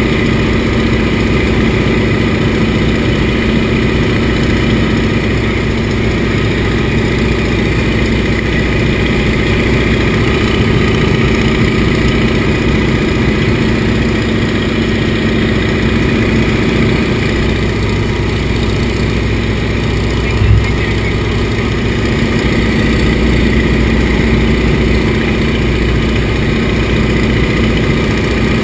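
Antonov An-2's nine-cylinder radial engine and propeller running steadily in cruise flight, heard inside the cockpit. A single short thump about two-thirds of the way through.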